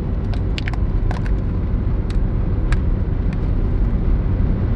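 Steady low rumble of a car heard from inside the cabin, with a scattered series of sharp clicks and crackles from a plastic clamshell container being handled and opened.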